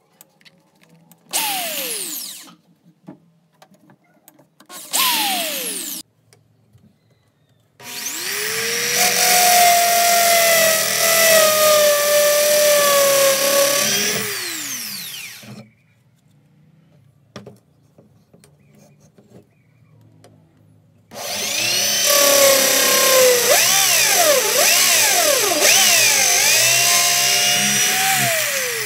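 Electric drill mounted in a drill stand, drilling into a wooden branch. Two short bursts of the motor, each winding down in pitch, are followed by two longer runs of several seconds each; the motor's whine wavers and drops in pitch as the bit bites into the wood, and it winds down each time the trigger is released.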